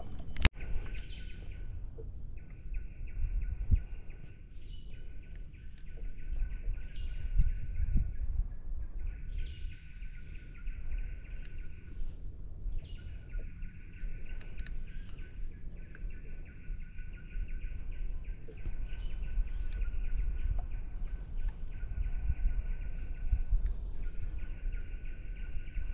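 A high, even, buzzing animal call repeats several seconds at a time with short breaks, over a low steady rumble.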